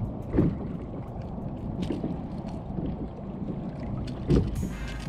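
Wind noise on the microphone and water lapping against a kayak hull, with two dull thumps, about half a second in and again near the end.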